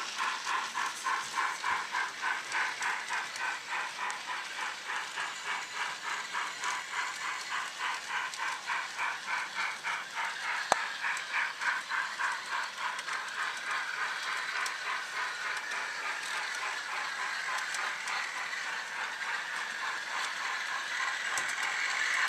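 Sound decoder of an OO-scale Beyer Garratt model steam locomotive playing exhaust chuffs, about two a second at first, quickening until they blend into a steady hiss. One sharp click about eleven seconds in.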